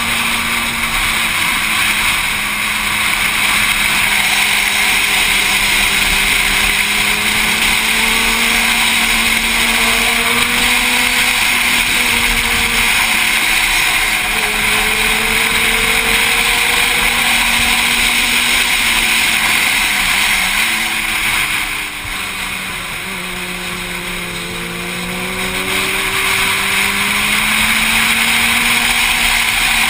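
Motorcycle engine running hard at speed, with heavy wind rush on the bike-mounted camera's microphone; the engine pitch wavers up and down as the revs change. About 21 seconds in the sound drops as the revs come down, then it builds back up a few seconds later.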